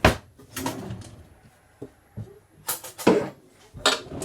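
A handful of sharp, uneven knocks and clatters of hard objects being handled and set down.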